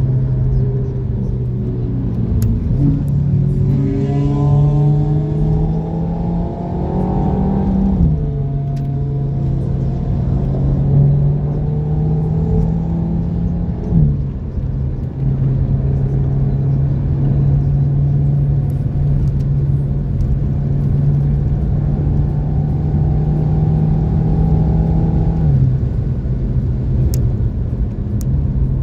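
Renault Mégane RS Trophy's turbocharged four-cylinder engine heard from inside the cabin, pulling hard at speed. Its pitch climbs and then drops sharply at gear changes about 8 and 14 seconds in, holds steady, and falls again a few seconds before the end as the car comes off the throttle, over a constant road rumble.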